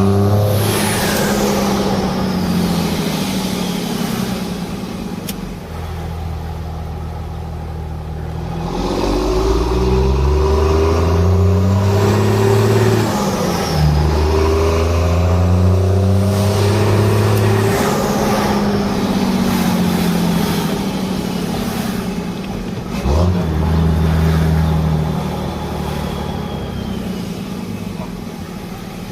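Dodge Ram pickup's Cummins inline-six turbo-diesel pulling hard through the gears of its manual gearbox: the engine pitch climbs, drops at each shift and climbs again, several times over, with a loud exhaust note.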